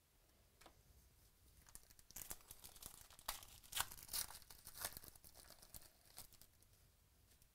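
Foil wrapper of a 2017 Select Football trading-card pack being torn open and crinkled by hand: a quick run of sharp crackling tears starting about two seconds in, loudest in the middle.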